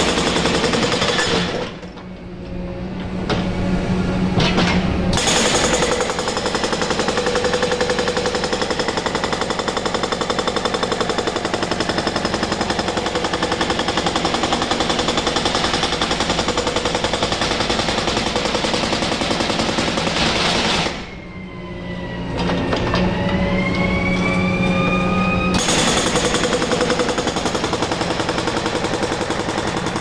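Hydraulic breaker on a Cat excavator hammering in rapid, continuous strokes. It stops briefly twice, about two seconds in and again about twenty-one seconds in. During the second stop a rising whine is heard before the hammering resumes.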